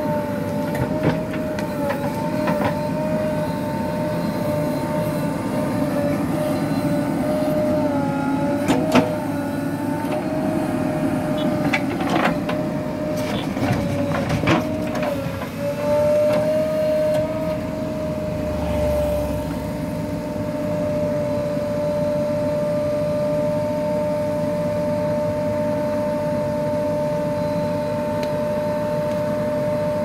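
JCB 3DX Super backhoe loader's diesel engine and hydraulics running, a steady whine whose pitch wavers and dips as the backhoe arm takes load, with a few metallic clanks around the middle. In the second half it runs evenly at one pitch.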